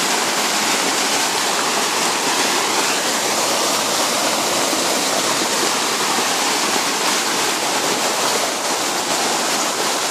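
Muddy floodwater rushing in a fast torrent, a stream in flood overflowing its banks and pouring over a walkway. A loud, steady rush of water.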